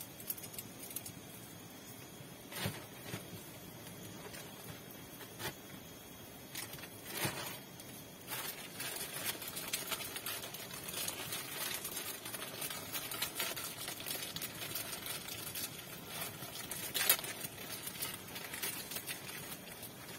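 Crinkling and crackling of a plastic snack wrapper being handled and torn open by hand. A few separate clicks first, then dense crackling from about eight seconds in, with one sharp snap a few seconds before the end.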